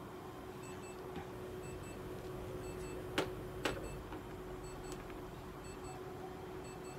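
Two sharp clicks about half a second apart, over a steady electrical hum and a faint electronic beep repeating about once a second from clinic equipment.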